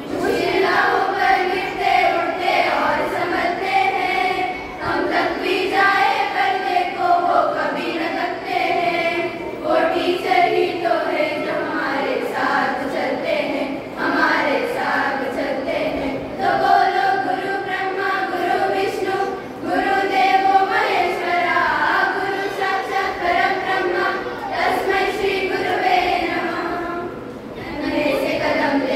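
A group of voices singing a song together, with short breaks between phrases.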